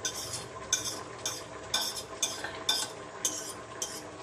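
Metal fork scraping and clinking across a ceramic plate in quick repeated strokes, about two or three a second, as shredded chicken is pushed off the plate into a pot of dal.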